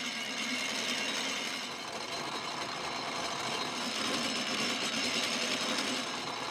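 Hand-cranked rope maker's wheel turning steadily, its geared hooks spinning and twisting pairs of sisal strands into single lines: a continuous mechanical running sound.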